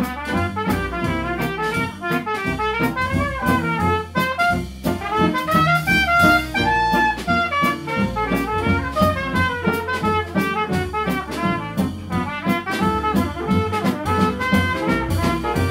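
Small swing jazz band playing an instrumental passage: saxophone and trumpet lines over piano, archtop guitar, walking upright bass and a drum kit keeping a steady beat.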